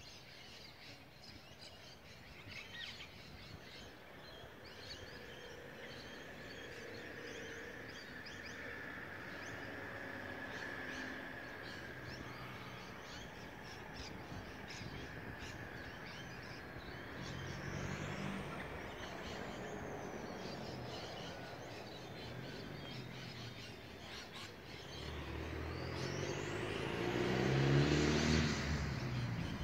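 Birds chirping over steady traffic noise, with cars passing; the loudest, a car going by close, swells up and fades near the end.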